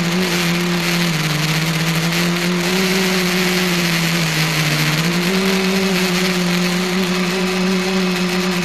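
Electric multicopter's motors and propellers heard from the camera riding on it: a steady hum over a rushing hiss. The pitch steps down about a second in and again near four seconds, then rises a little after five seconds as the throttle changes.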